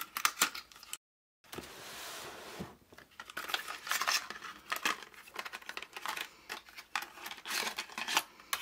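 Hands handling and opening a cardboard pen pack of fineliners, with crinkling, rustling and sharp little clicks and taps. The sound drops out completely for a moment about a second in, then a smooth sliding rustle follows for about a second before the clicks and crinkles resume.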